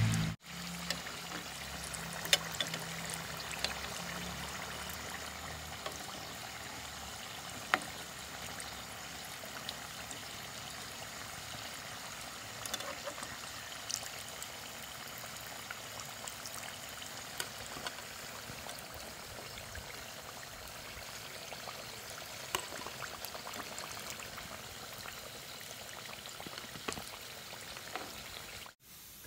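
Spring rolls deep-frying in hot oil: a steady sizzle and bubbling, broken by scattered small pops and crackles.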